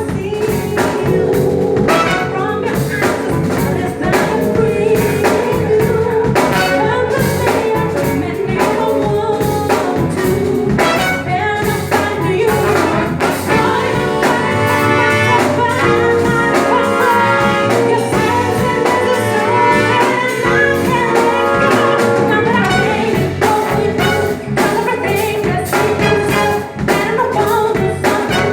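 Funk band playing live at a sound check, singing over a steady beat.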